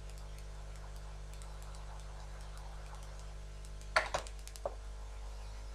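A few sharp clicks of small hand tools at the repair bench, bunched together about four seconds in, with faint scattered ticks, over a steady electrical hum.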